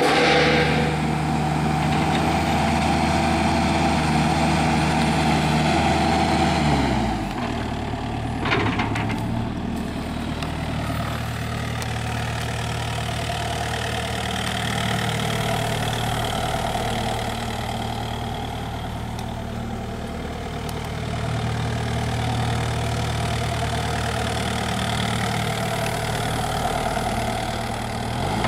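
Kubota U-55 mini excavator's diesel engine running, its revs dropping about seven seconds in, with a short click a second later, then running steadily at the lower speed.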